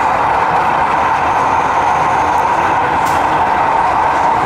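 Model train running on an exhibition layout: a steady, even noise with no pauses, with a brief faint click about three seconds in.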